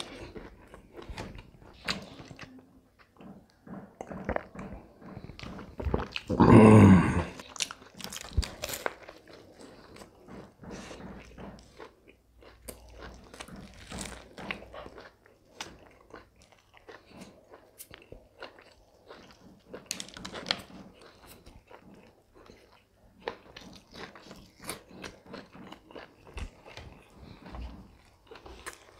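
Close mouth sounds of a man biting and chewing a fried-fish sandwich: dense short chewing clicks and crunches throughout. About six seconds in there is one brief, loud voiced sound from the eater.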